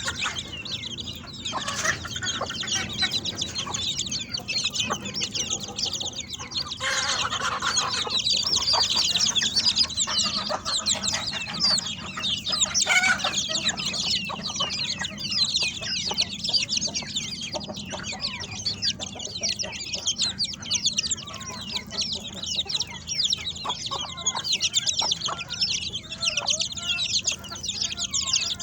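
A large flock of chickens clucking and calling all at once, a dense continuous chatter of many overlapping short calls.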